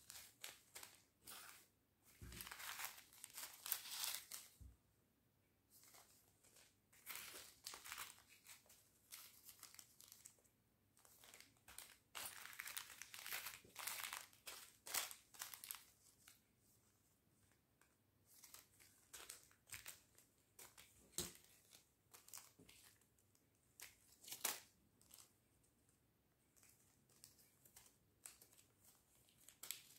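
Small clear plastic zip bags of seed beads and bead findings crinkling as they are picked up and sorted, in irregular bursts of crackling with quiet gaps between.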